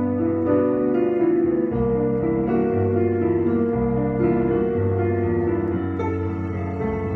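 Keyboard music: held chords over a bass line that moves to a new note every second or so.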